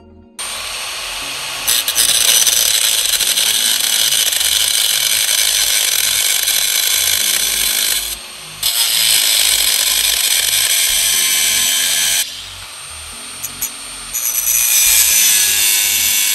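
A power tool running in long, steady runs. It stops briefly about eight seconds in, runs again, then goes quieter for a couple of seconds before picking up again near the end.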